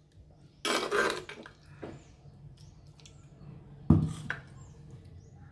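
A steel spoon scraping and scooping thick cooked fruit pulp from a clay pot into a steel mixer jar. There are scrapes about a second in and a sharp knock of metal just before four seconds in, the loudest sound, then a lighter knock.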